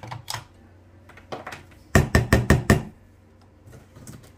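Six quick, sharp knocks, about halfway through, from a stick blender's plastic head being tapped against the glass mixing bowl to shake off the guacamole. A few lighter clicks come before them.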